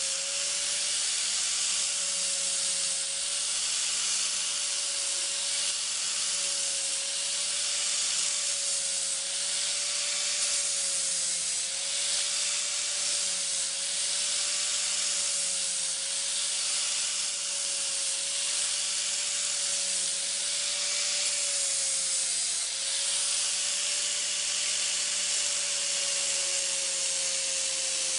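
Electric angle grinder with a sanding disc running steadily against a wooden shelf's end edge, smoothing the cut decorative edging. A high sanding hiss sits over a steady, slightly wavering motor whine.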